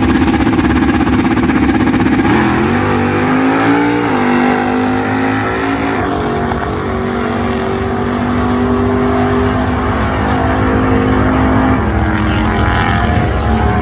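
Drag racing cars launching off the line and running flat out down the strip. The engine note climbs in pitch, drops sharply at gear shifts about four and six seconds in, then holds steady.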